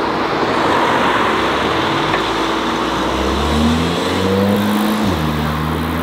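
Volkswagen Golf engine accelerating over steady street traffic noise: its note climbs for about a second and a half, drops sharply about five seconds in, then holds steady.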